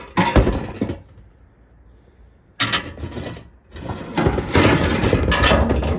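Rubbing and scraping from parts being handled: a short burst at the start, another around the middle, and a longer, steadier stretch over the last two seconds.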